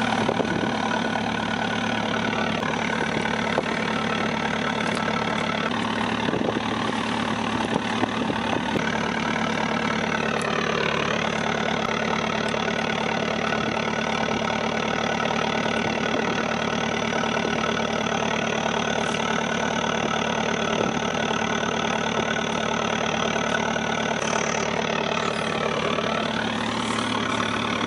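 Small fishing boat's engine running steadily under way, its pitch dipping briefly twice.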